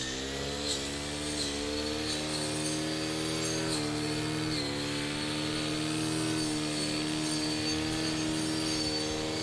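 Petrol brush cutter running at high revs while cutting grass, its engine pitch dipping briefly a few times as the blade bites into thick grass.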